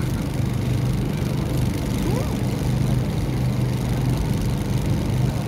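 A steady low mechanical hum, like a small engine running at idle, with a faint short rising tone about two seconds in.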